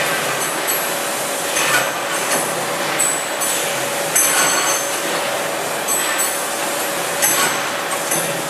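Powered ridge-tile roller running: its electric motor hums steadily while its wheeled carriage rolls along steel rails over the concrete mould, with a few clinks and knocks of metal.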